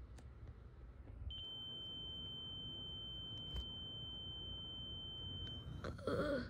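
A single steady high-pitched electronic tone, held for about four and a half seconds, starting about a second in and cutting off sharply near the end. A brief voice sound follows it.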